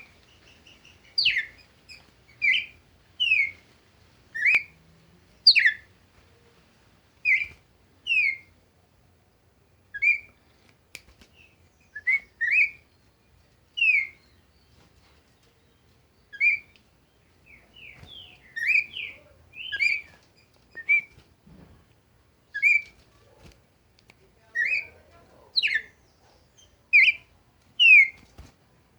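A songbird singing short, clear, downward-slurred whistled notes, roughly one a second, sometimes two in quick succession.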